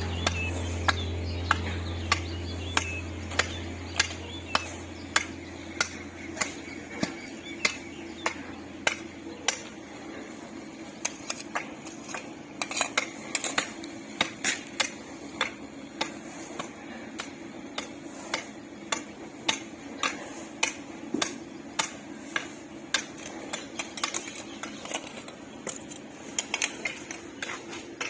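Metal hand tools clinking and scraping on metal in a steady rhythm, about one to two strikes a second, as concrete is worked by hand. A low hum fades out over the first ten seconds.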